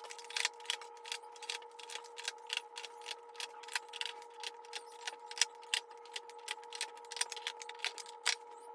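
Quick, irregular clicks and taps of small supplies being handled and set into a teacher toolbox drawer organizer, several a second, over a faint steady held tone.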